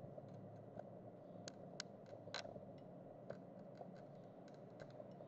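Faint scattered small clicks and taps of hand tools being handled at a phone-repair bench, over a low steady room hum; the loudest few come about one and a half to two and a half seconds in.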